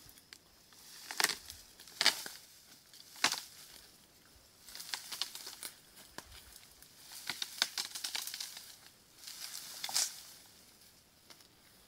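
Dry brush and dead branches crackling and snapping as they are pulled up and dragged through dry grass, in irregular bursts, with three sharp snaps in the first few seconds.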